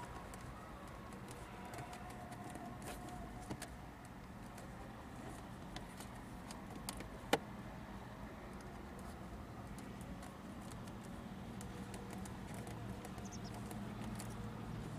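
Small clicks and rubbing of fingertips pressing EL wire trim into the gap between plastic dashboard panels, with one sharper click a little after seven seconds, over a steady low hum.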